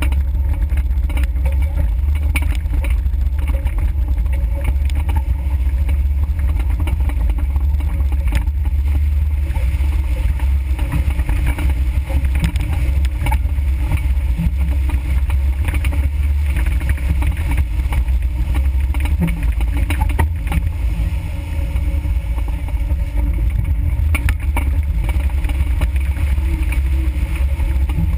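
Engine of an off-road 4x4 running steadily at low trail speed, heard through a vehicle-mounted camera, with a heavy low rumble and occasional knocks and rattles over the bumps.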